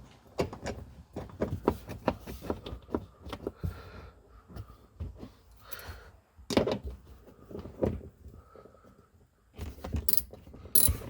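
Irregular clicks and knocks of a screw being fitted and driven into a plastic bumper trim piece by hand.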